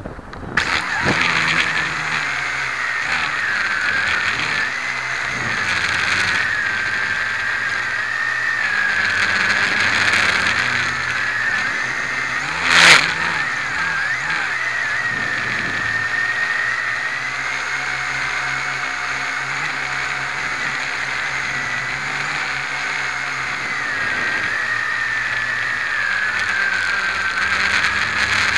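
V262 quadcopter's four motors and propellers spooling up about half a second in, then running with a high, wavering whine that rises and falls with the throttle. A single sharp knock about thirteen seconds in.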